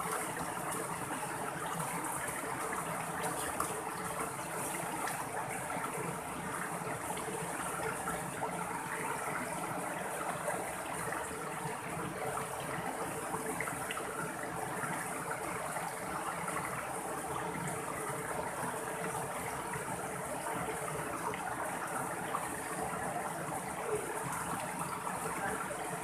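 Shallow mountain stream running over rocks and small cascades: a steady rush and splash of water.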